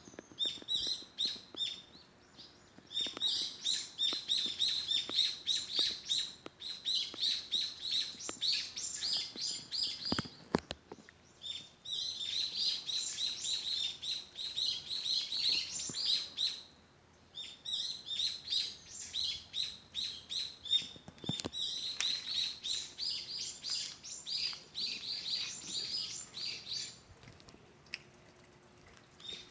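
A small bird chirping in long runs of rapid, high notes, several a second, broken by a few short pauses.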